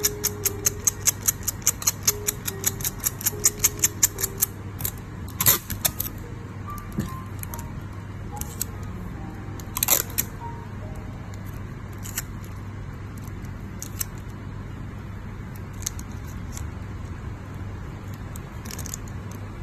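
Background music: a quick ticking beat at about four a second with a few held notes, thinning out after about four seconds to scattered notes. A few isolated sharp clicks sound later, over a steady low hum.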